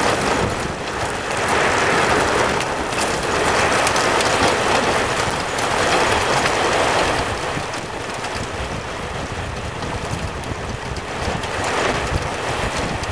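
Wind rushing over the microphone and tyre noise from a recumbent bike and its trailer rolling fast on asphalt: a steady rush that swells and eases every few seconds.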